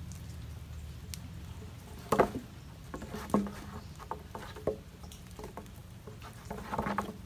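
Scattered light knocks and taps of goats' hooves on a wooden teeter-totter plank, over a faint steady low hum.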